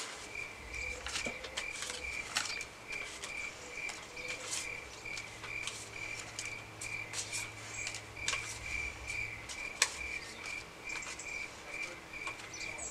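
Cricket chirping steadily, about three chirps a second, over soft rustling and snapping of paper banknotes being counted by hand.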